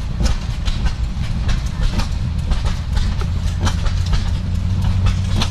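Machinery running with a low, continuous rumble and irregular sharp clacks, and a steady low hum that settles in about halfway through.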